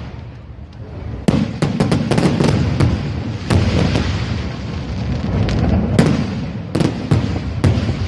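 Fireworks going off: after a quieter first second comes a string of sharp cracks and bangs in clusters, over a continuous crackle.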